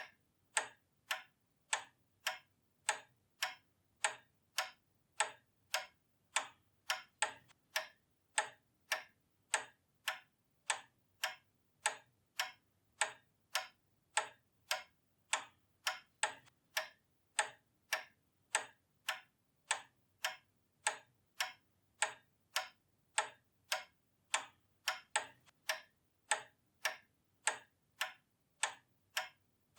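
Pendulum clock ticking steadily, about two sharp ticks a second in an even tick-tock rhythm.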